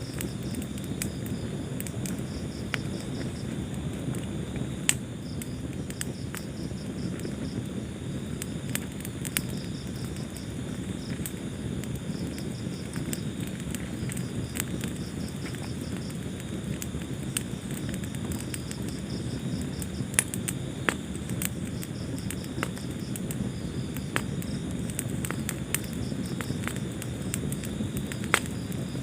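Wood fire crackling in a fireplace: scattered sharp pops and snaps over a low steady rush of flame. Crickets chirp in the background in steady repeating trains.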